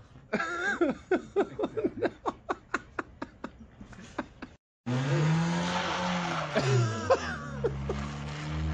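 A person laughing in a rapid run of short, breathy laughs that fade out. After a sudden cut, a car engine revs up and down and then holds steady revs over a steady hiss of noise, as the car slides on snow.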